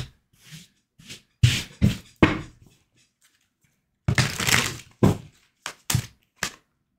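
Tarot deck shuffled by hand: short papery bursts of cards sliding and slapping together, a longer run of shuffling about four seconds in, then a few quick snaps near the end.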